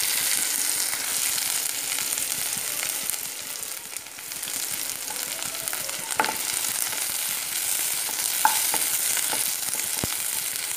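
Crushed garlic sizzling in hot mustard oil in a non-stick frying pan, stirred with a wooden spatula, with a few short scrapes of the spatula against the pan.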